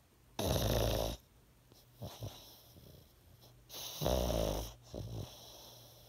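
An old pug snoring in its sleep: two loud snores about three and a half seconds apart, each followed by a shorter, fainter breath.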